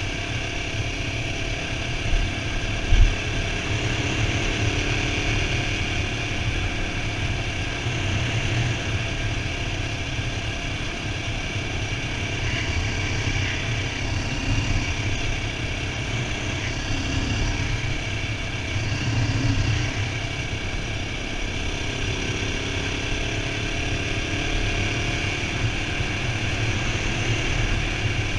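CSC RX3 Cyclone's 250 cc single-cylinder engine running steadily as the motorcycle is ridden along a dirt road, heard from a helmet chin mount. Two brief low thumps come about two and three seconds in.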